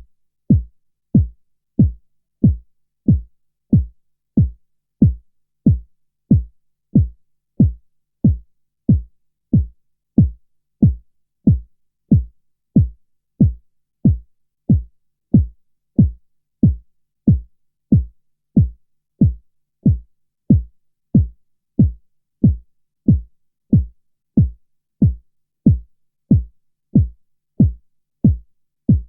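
Deep bass thumps repeating evenly, about three every two seconds, starting abruptly out of silence: a low-frequency (LFE) bass pulse signal for testing a JVC subwoofer.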